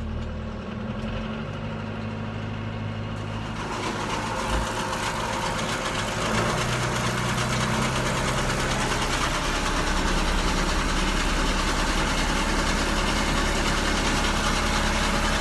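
Tractor engine throttled up in steps to about 2100 rpm, its operating speed for running a New Holland Roll Belt 450 round baler off the PTO. A rising mechanical rattle joins in from about four seconds in, and the whole settles into a steady, louder run in the second half.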